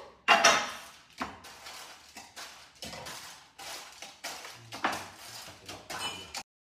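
Ceramic mugs being handled on a kitchen counter: a string of about ten clinks and knocks, the loudest about half a second in. The sound cuts off abruptly near the end.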